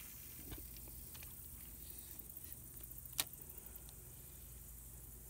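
Fishing reel being cranked on a retrieve: faint small ticks, with one sharp click about three seconds in.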